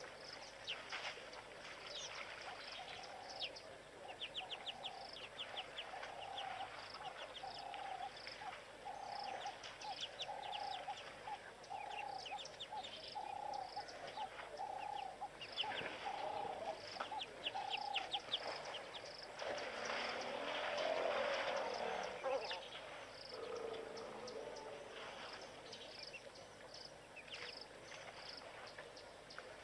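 Birds calling: a short call repeated about once a second, with high chirps and quick trills over it. About two-thirds of the way through, a louder rustling noise lasts a couple of seconds.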